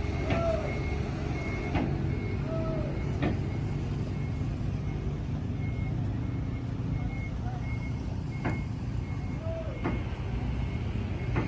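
Large bus engine idling steadily, with a reversing beeper sounding in short, evenly spaced high beeps that come and go, and a few sharp clicks.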